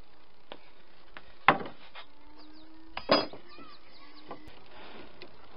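Two sharp knocks on a wooden plank workbench, about a second and a half apart, as a long strip of wood is set down and handled; the first is the louder.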